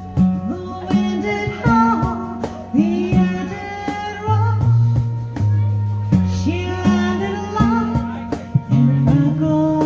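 A folk band playing live: a voice sings a melody over instruments holding low notes, with a steady beat.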